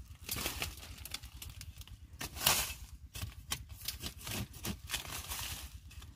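Irregular crackling and rustling of dry bamboo leaf litter as a long-handled digging spade is moved through it, with one louder crunch about two and a half seconds in.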